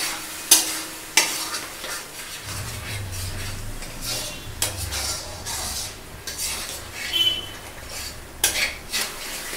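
Spatula stirring spice paste frying in rendered duck fat in a metal kadai, with steady sizzling and scraping. Sharp metal knocks against the pan come three times in the first second or so and twice near the end.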